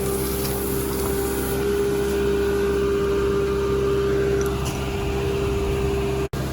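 Engine of a digging machine running steadily with a constant hum, cutting out for an instant near the end.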